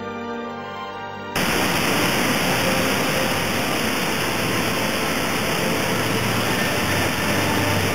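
Background music that cuts off suddenly after about a second, giving way to the steady, loud rush of floodwater pouring through the open spillway gates of a river dam.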